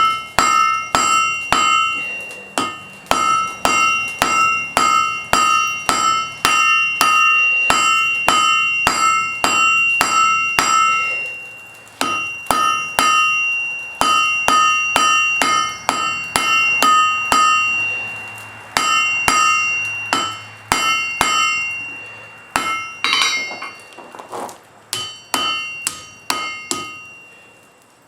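Blacksmith's hammer striking hot wrought iron on an anvil in steady runs of about two blows a second, each blow leaving a bright metallic ring. Brief pauses break the runs, and the blows become lighter and more scattered near the end.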